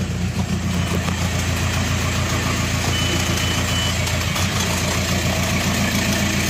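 VW Passat's 2.0 TDI pumpe-düse (BHW) four-cylinder diesel idling steadily, cold, just after its first start following an oil pump conversion.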